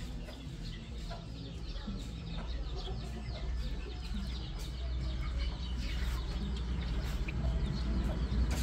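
Chickens clucking, many short high calls throughout, over a low rumble that grows louder toward the end.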